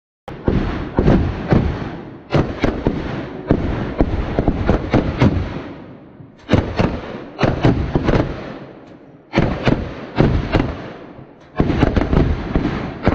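Rapid gunfire from several shooters firing rifles and pistols at once, the shots overlapping in strings of one to a few seconds with short pauses between, each shot ringing briefly.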